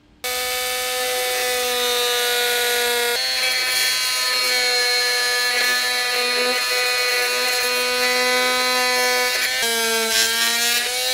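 Dremel-type rotary tool with a reinforced cut-off wheel spinning at high speed, cutting through the plastic honeycomb grille of a car bumper. A steady high whine starts abruptly and shifts slightly in pitch about three seconds in and again near the end.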